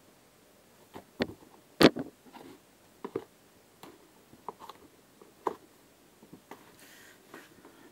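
Scattered thumps and rustles of a cut-up Adidas Predator football boot being stamped on a carpeted floor and then kicked off and dropped. About half a dozen separate knocks, the loudest about two seconds in.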